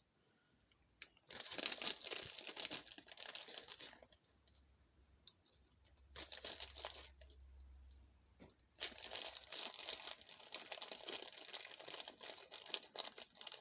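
Soft crinkling and rustling of plastic packaging in three bursts, the first about a second in and the last from about nine seconds on, as shredded cheese is sprinkled over the chips.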